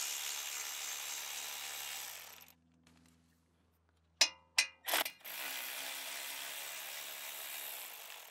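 Milwaukee cordless ratchet running as it spins out a 7 mm hex brake caliper guide bolt, for about two seconds, then stopping. Three sharp clicks follow, and the ratchet runs again for about three seconds on the second bolt.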